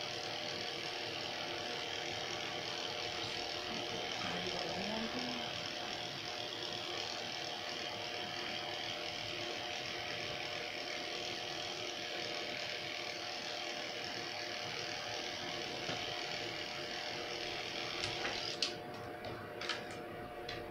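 Electric pet grooming clippers running with a steady buzzing hum as they shear a dog's coat. Near the end the higher hiss drops away and a few sharp clicks follow.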